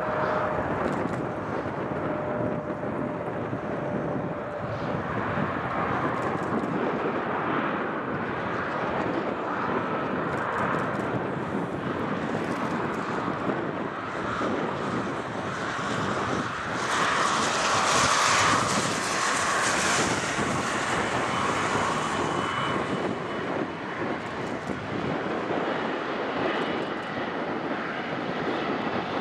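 Airbus A330-243 jet airliner with Rolls-Royce Trent 700 engines rolling out along the runway after landing: a steady broad jet roar and hiss that swells louder for a few seconds just past the middle, with a faint high whine late on.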